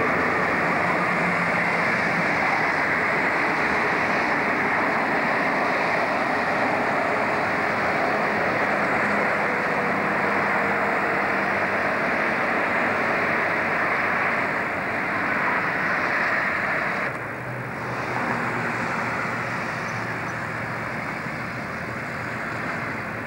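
Diesel train passing close by, its engine droning under a steady rushing noise. About seventeen seconds in the sound cuts to a quieter, lower engine drone of a train further off.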